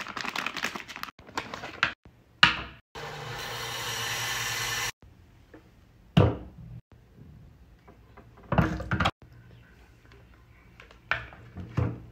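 Plastic water bottle and gravity water-dispenser base being handled: a series of hollow plastic knocks and clunks, with a steady rush of running water for about two seconds a few seconds in.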